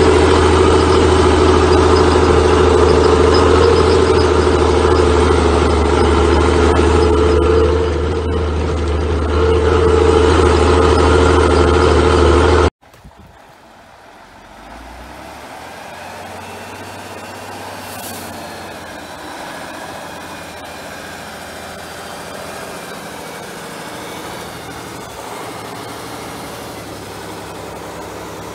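Praga V3S truck's air-cooled Tatra six-cylinder diesel running steadily under way, heard loud and close from aboard the truck. About 13 seconds in it cuts off abruptly to a quieter, steady engine sound of a vehicle on a muddy forest track.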